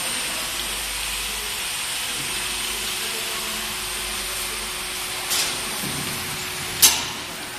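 Steady rushing noise of running machinery, with a faint high whine over it. A short knock comes near the end, then a sharp click that is the loudest sound.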